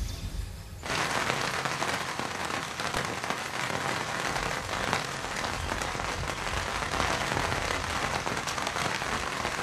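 Steady heavy rain pattering, starting abruptly about a second in.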